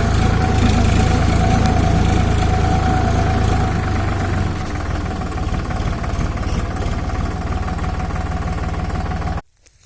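Engine running steadily with a deep rumble and a steady whine; it eases off slightly about halfway through, then cuts off abruptly near the end.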